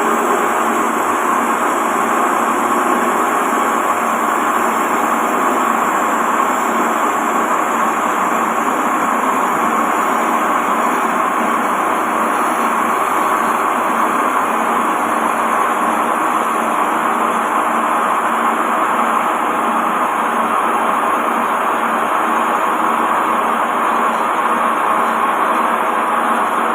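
Lathe running steadily while a radius cutting tool turns a curved groove into a roller for a dowel machine.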